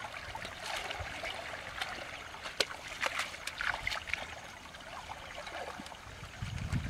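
Shallow water trickling in a small channel, with light splashes and clicks as hands work in the water around a woven bamboo fish trap. Wind rumbles on the microphone near the end.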